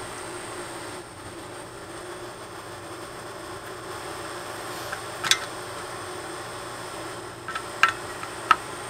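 Sharp clicks and taps of a small electronics board and its parts being handled and pried apart, over a steady background hum. One click comes about five seconds in and two more close together near the end.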